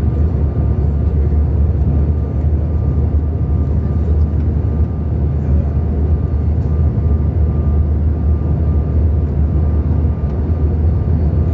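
Steady cabin noise inside a CRJ-900 airliner: a low, even rumble of airflow and the rear-mounted turbofan engines, with a faint steady high whine.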